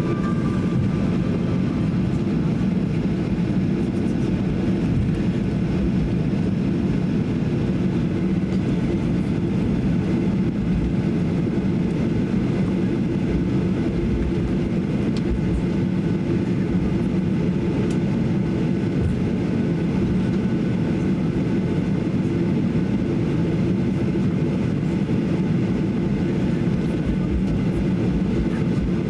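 Cabin noise of a Boeing 737-800 taxiing: its CFM56 engines at taxi power make a steady low rumble and hum inside the cabin.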